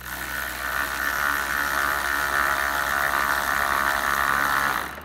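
Cordless power tool spinning a 10 mm socket on an extension, running down a headlight mounting bolt with a steady whir that cuts off suddenly at the end.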